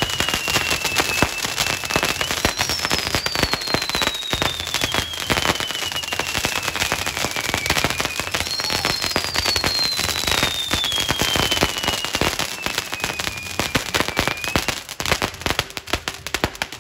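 Fireworks going off in a dense, continuous crackle, with whistling fireworks giving three long whistles that each slide slowly downward over several seconds. The crackling thins out near the end.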